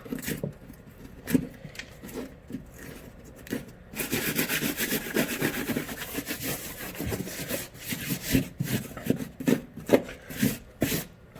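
Scraping and rubbing at damaged drywall to clear away loose torn paper and crumbled gypsum. Scattered scrapes and taps give way, about four seconds in, to a few seconds of steady rasping scrape, then to short strokes and knocks.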